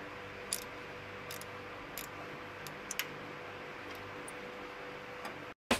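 Ratchet wrench on the timing-belt tensioner pulley bolt giving single sharp clicks, spaced about half a second to a second apart, over a steady background hum. The sound cuts off abruptly near the end, followed by one sharp click.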